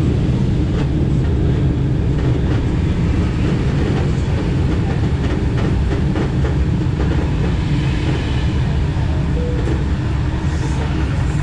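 Running noise of an SKM Tricity electric commuter train, heard from inside the carriage: a steady low rumble of wheels on rail with a few faint clicks.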